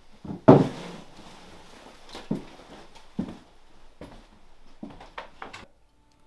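Scattered knocks and thumps of someone moving about a small room: a loud knock about half a second in, then a few fainter thumps and light clicks.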